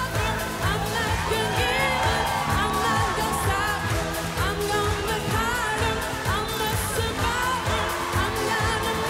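A woman singing a pop song live into a handheld microphone over a backing track with a steady beat.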